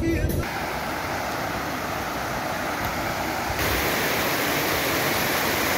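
Muddy stormwater runoff rushing across a street in a heavy downpour: a steady, even rushing noise that gets louder about three and a half seconds in.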